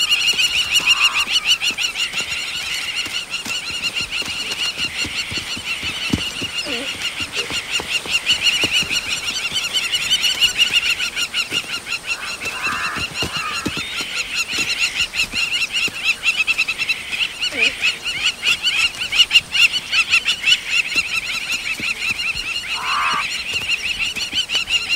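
A plover's shrill alarm calls, repeated rapidly and without a break, warning of a hunting cheetah. A few short, lower calls break in about a second in, around twelve seconds in and near the end.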